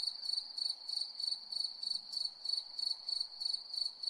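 Crickets chirping: an even, high-pitched pulsing trill, about three chirps a second.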